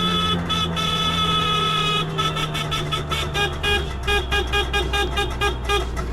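Vehicle horn held for about two seconds, then beeped in rapid short toots, about five a second, over the steady running of an auto-rickshaw's two-stroke engine.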